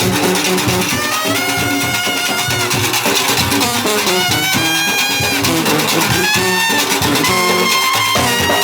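Background music: an upbeat instrumental track with a steady beat, plucked guitar and a held melody line.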